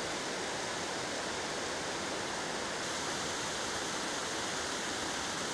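Floodwater from a burst dam rushing past in a muddy torrent: a steady, unbroken rush of water.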